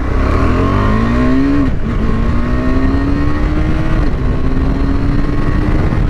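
KTM 390 Adventure's single-cylinder engine accelerating hard, its pitch climbing through the gears and dropping sharply at two quick-shifter upshifts, about two seconds in and again about four seconds in.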